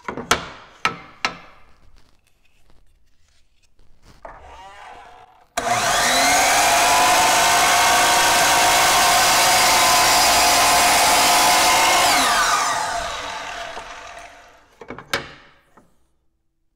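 DeWalt DW716 12-inch miter saw cutting through a 3/4-inch Baltic birch plywood strip: the motor starts abruptly, runs with a steady whine for about six seconds, then winds down. A few wooden knocks as the board is flopped over before the cut, and a sharp click near the end.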